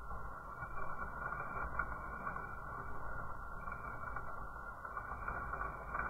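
Fire burning in a wood-burning fireplace behind its glass door, a steady hiss with a few faint crackles.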